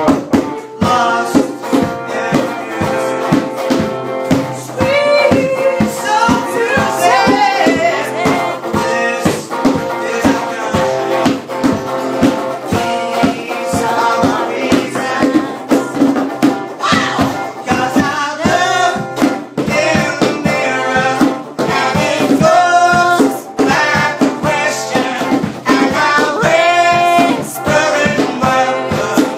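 A blues song performed live: an acoustic guitar is strummed while a man sings lead, over a steady beat of drums.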